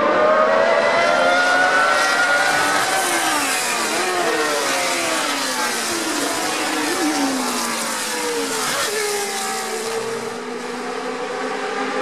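Historic 1970s Formula 1 cars' racing engines passing in quick succession: several engines rev up through the gears with rising notes. Then the notes fall in steps with short jumps in pitch as the cars brake and change down, fading a little near the end.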